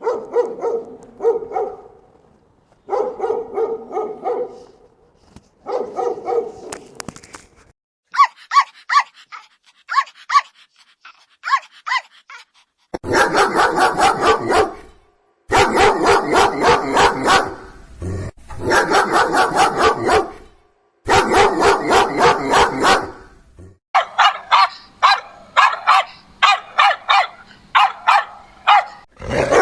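Several different dogs barking in turn: deeper barks first, then high-pitched yapping, then long runs of fast, repeated barking.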